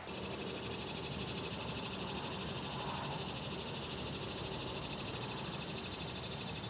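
A steady, high-pitched chorus of calling animals with a fast, even pulse, starting abruptly at a cut.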